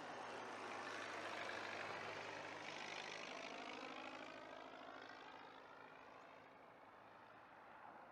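Light propeller airplane engine passing by, growing louder to a peak about two seconds in and then fading away, its tone sweeping as it goes.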